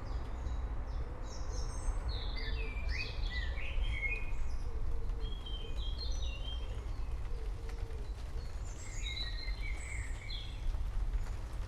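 Several forest birds chirping in quick, short sliding phrases over a steady hiss of rain and a continuous low rumble.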